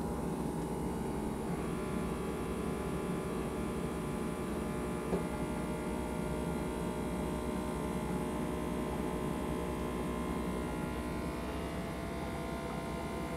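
Thetford iNDUS toilet's macerator running with a steady electric hum, a higher whine joining about a second and a half in. A small click about five seconds in.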